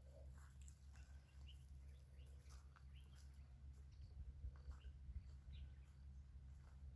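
Near silence: a steady low hum with faint, scattered short chirps and clicks.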